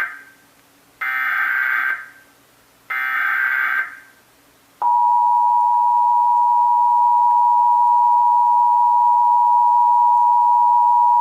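Emergency Alert System broadcast sequence: the end of one burst and then two more one-second bursts of SAME header data tones, evenly spaced. About five seconds in, the steady two-tone attention signal (853 and 960 Hz) starts and holds loud.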